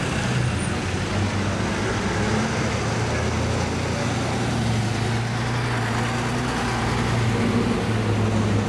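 Vintage London Transport single-deck bus's diesel engine running with a steady low drone as the bus moves slowly past, over street traffic noise.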